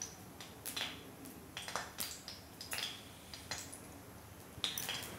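Faint, scattered light clicks and taps of dishes and utensils being handled, about one a second.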